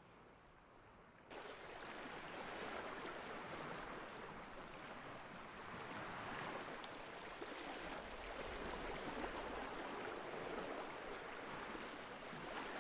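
Small waves washing on the shore: a steady, uneven rushing of water that begins abruptly about a second in after near quiet.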